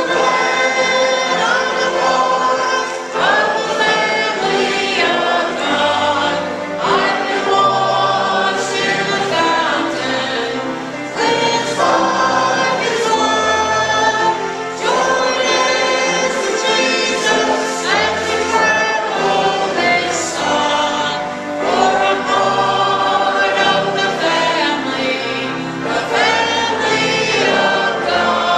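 A church congregation singing a gospel hymn together.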